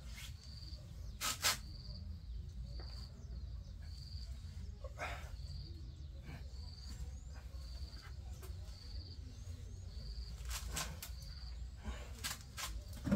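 Sharp metallic clinks, a few times, from the plates of a plate-loaded dumbbell during one-arm rows, over a short high chirp that repeats about once a second.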